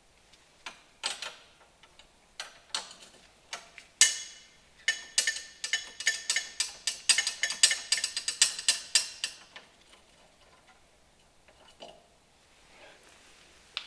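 Metal tools and parts being handled, making a run of sharp metallic clicks and clinks. They come thickest about four to nine seconds in, then thin out to a few faint clicks.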